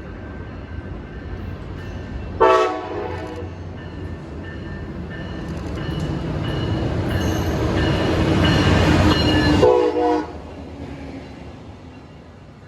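A diesel train's horn sounds a short blast about two seconds in, then the train rumbles closer and louder. It passes with a second horn blast about ten seconds in, after which the rumble fades.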